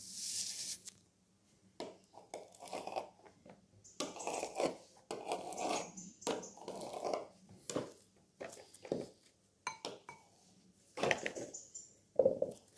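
A kitchen knife cutting through moulded kinetic sand and then a blob of green slime on a wooden table. The sound is a run of irregular soft crunches and scrapes, with the blade knocking on the tabletop, and the loudest strokes come near the end.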